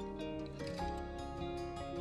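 Background music: a plucked-string melody over a sustained bass.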